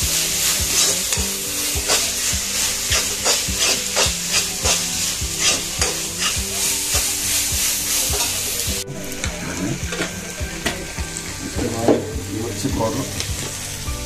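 Sliced onions frying in oil in a steel kadai, sizzling, while a metal spoon scrapes and clinks against the pan about twice a second as they are stirred. About nine seconds in the sizzle drops abruptly quieter and the strikes thin out.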